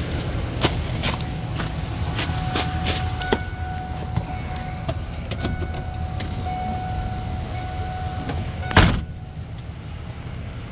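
Van engine idling with a low, steady rumble under several sharp clicks and a high warning tone that sounds on and off. Near the end a door slams shut loudly, and the sound becomes quieter afterwards.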